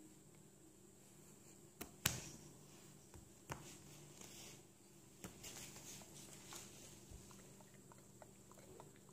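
Faint close-up sounds of a Bernese mountain dog nosing and licking a baby: a few sharp taps, the loudest about two seconds in, and soft wet snuffling, over a steady low hum.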